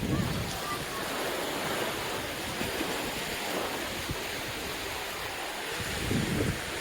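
Ocean surf washing onto the beach in a steady rush of waves, with wind on the microphone that grows stronger near the end.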